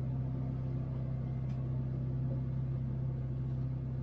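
Generator running with a steady low hum.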